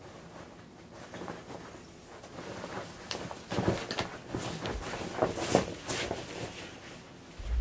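Stiff new selvedge denim jeans rustling and swishing as they are stepped into and pulled up, with bare feet shuffling on a rug; the rustling is loudest in the second half.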